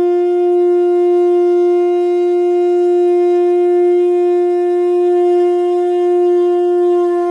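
Conch shell (shankha) blown in one long, steady note, rich in overtones.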